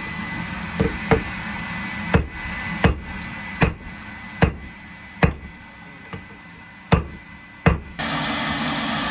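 Hammer blows, about nine sharp strikes, roughly one every 0.8 seconds, over a steady rushing noise that fades midway and comes back loud near the end.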